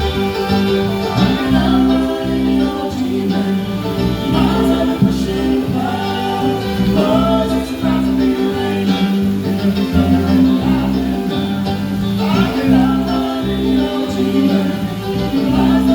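A song: voices singing over guitar and a bass line.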